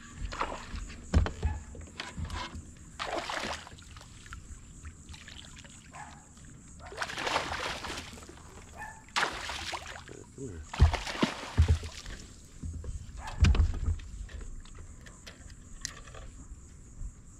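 A hooked fish splashing and thrashing at the water's surface beside a kayak, in several irregular bursts, with a few dull thumps in between.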